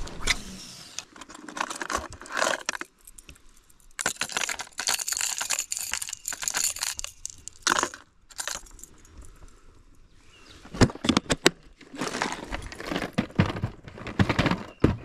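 Rummaging through a plastic tackle tray of crankbaits: lures and treble hooks clatter against the plastic dividers amid rustling handling noise, with a quick run of sharp clicks a little past the middle.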